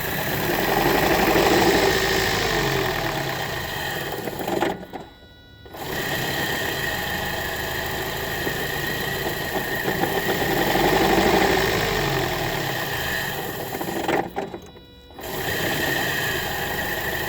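Toyota Prius 1.5-litre four-cylinder petrol engine idling, with a steady machine-like running sound. Twice it drops away almost to silence for about a second, then picks up again.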